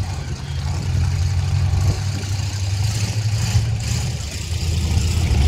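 Car engines running steadily with a low engine note, over a wash of outdoor noise.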